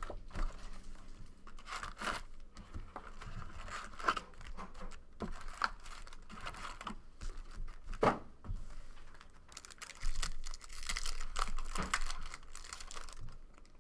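Trading-card box packaging and foil packs being torn open and crinkled by hand: irregular tearing and crackling, busiest near the end.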